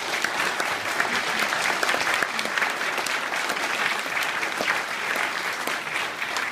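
Audience applauding: many people clapping, evenly throughout.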